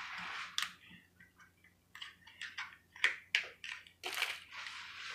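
Small plastic toy pieces and wrapping being handled: rustling and crinkling, with a few sharp plastic clicks, the loudest a pair about three seconds in.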